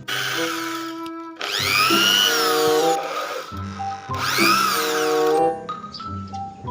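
Electric drill whirring twice, each run rising and then falling in pitch, over background music.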